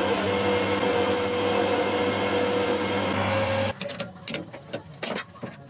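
Metal lathe running with a steady hum as the tool cuts a metal workpiece; the sound cuts off suddenly about three and a half seconds in. Light metallic clicks and taps follow as the three-jaw chuck is loosened with its chuck key.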